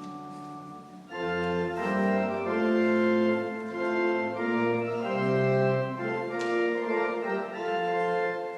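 Church organ playing sustained chords. The music gets louder about a second in, when low bass notes join.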